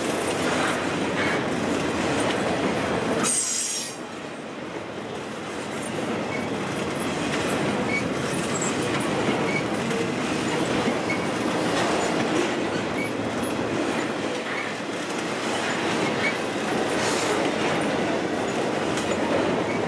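Intermodal freight train, double-stack container and trailer cars, rolling past close by: a steady rumble and rattle of steel wheels over the rail joints. A brief high wheel squeal comes about three seconds in, and another later on.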